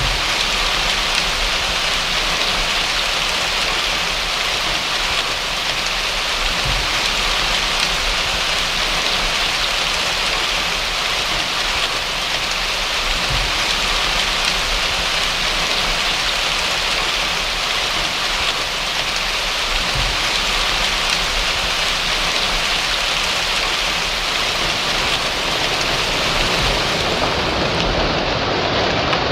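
Steady, even rain falling, a constant hiss of drops on surfaces with no thunder or other sounds standing out.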